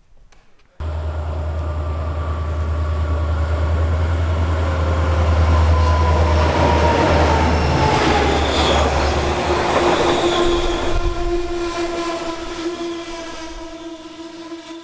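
Passenger train pulling into a station: a loud low rumble with whining tones that slowly fall in pitch as it slows. Near the end it settles into a single steady squeal.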